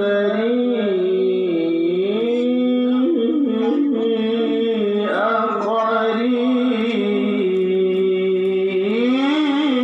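Male qari reciting the Quran in a long, held, melismatic chant, the voice sustaining notes and winding through ornamented turns without a break.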